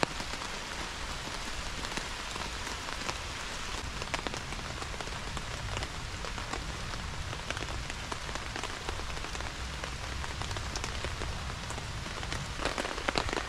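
Steady heavy rain falling on a tarp shelter overhead and the surrounding woodland: a constant hiss with many separate drops ticking through it.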